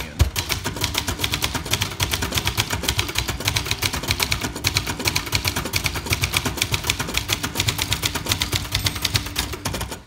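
Typing on a 1966 Montgomery Ward Signature 300, a rebranded Brother JP-1 ultra-portable manual typewriter: a quick, even run of typebar strikes, several a second.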